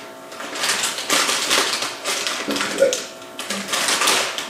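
Crinkling and tearing of a plastic snack pouch being pulled open by hand, a dense irregular crackle.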